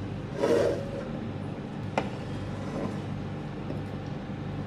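Aluminium pot lid lifted off a cooking pot with a brief clatter, then a single sharp click about two seconds later, over a steady low hum.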